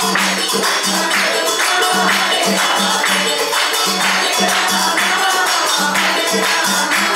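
Folk dance music: a drum keeps a steady beat under fast, continuous jingling of tambourine-like metal percussion, with a faint melody or voice gliding over it.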